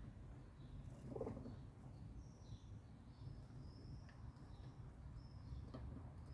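Sparrows chirping in many short, high notes over a steady low city rumble, with one louder, lower call about a second in.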